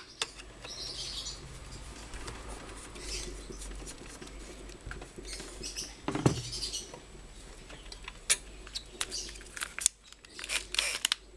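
Parts of a Hitachi automatic water pump being handled and worked loose by hand: scattered light clicks and knocks of metal and plastic, with one louder knock about six seconds in.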